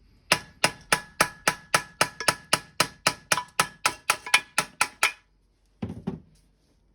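Rapid ringing hammer blows on metal, about four a second for roughly five seconds, knocking an old suspension bush out of an MX-5 front wishbone. A couple of duller knocks follow near the end.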